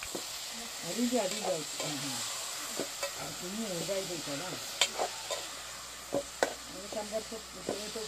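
Metal spoon stirring wild mushrooms and tomatoes in a metal pot over a steady sizzle of frying, with sharp clicks of the spoon against the pot about five and six and a half seconds in. Several short wavering tones rise and fall among it, the loudest about a second in.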